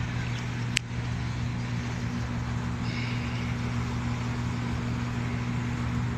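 Steady low hum with a single sharp click just under a second in.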